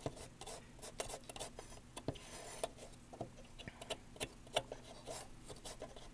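Fingertip rubbing and scratching over the dust-caked circuit board of an old Magnavox receiver. It is faint, with scattered light scrapes and small clicks at uneven intervals.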